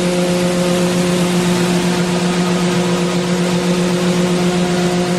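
A vehicle engine running at a constant speed: a steady, unchanging hum over a loud even hiss.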